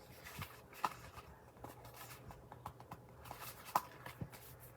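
Paper being handled and pressed into place: scattered light clicks, taps and rustles, with two slightly sharper taps, one about a second in and one near the end.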